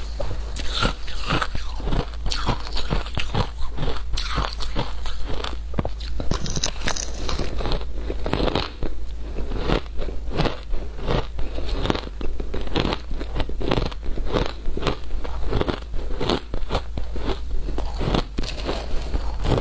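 Shaved ice being bitten and chewed by mouth: a steady run of crisp crunches, two or three a second.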